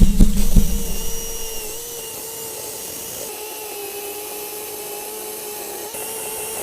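Greenworks 40V cordless electric chainsaw running at a steady speed with an even motor whine. Several loud knocks come in the first second.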